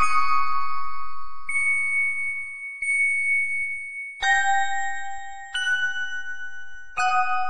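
Slow instrumental music of ringing bell-like notes, each note or chord struck and left to ring out, with a new strike about every second and a half.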